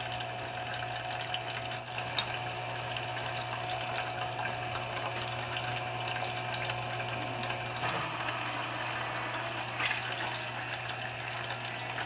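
Water trickling and splashing steadily from the tube spouts of a small homemade plastic-bottle fountain into its pebble basin, over the steady low hum of its small motor pump.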